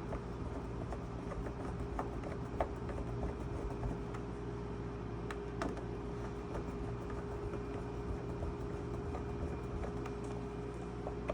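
Scattered small clicks and taps of a hand screwdriver and fingers working screws into the lid of a small electronics enclosure, with a sharper click about five and a half seconds in, over a steady hum.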